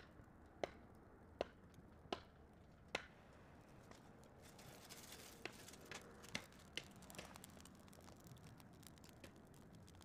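Wood fire catching in feather sticks and wood shavings: faint crackles and sharp pops, five in the first three seconds and a few more about halfway through, over a low hiss of flame.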